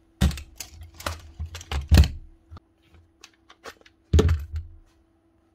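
Cordless drills and tools being handled on a workbench: irregular knocks and clatter, heaviest about two seconds in and again about four seconds in, with light ticks between.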